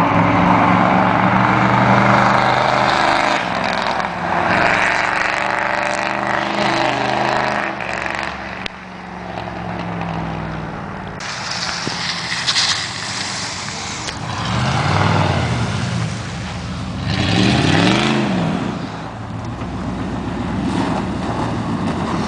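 Straight-piped 5.0-litre V8 of a 1988 Chevy pickup, running steadily as the truck drives past. Later the engine revs up and back down twice, a few seconds apart, then settles to a lower steady note with the truck close by near the end.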